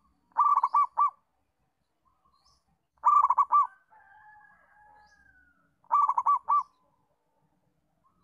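Zebra dove (perkutut) cooing: three bursts of rapid staccato coos, about three seconds apart, used as a master/lure song to coax young perkutut into singing. Faint high chirps sound between the bursts.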